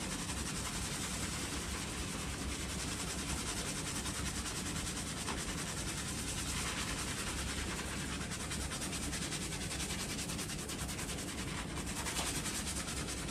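Hands scrubbing a lathered scalp during a shampoo: steady, fast wet rubbing of foam-covered hair with an even rhythm of strokes.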